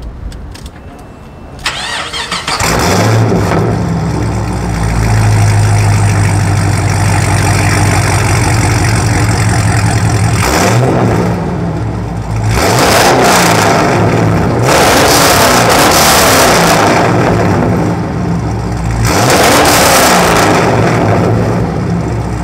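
Chevrolet Camaro SS V8 engine (6.2-litre) running. About two seconds in it gets loud and holds a steady idle, then it is revved several times in the second half, each rev rising and falling back.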